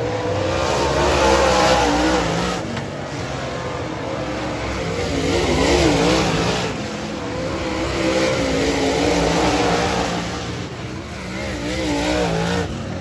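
Several dirt late model race cars' V8 engines running hard around a dirt oval. The engine notes rise and fall with the throttle, and the sound swells several times as cars go past.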